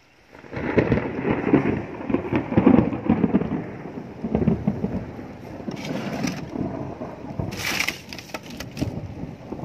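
Wind buffeting the phone's microphone, a low rumble that swells and fades unevenly, with two short hissing rustles about six and eight seconds in.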